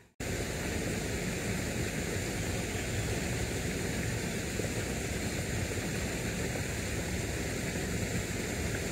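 Steady outdoor rushing hiss, even throughout, with no distinct events; it starts after a split-second gap.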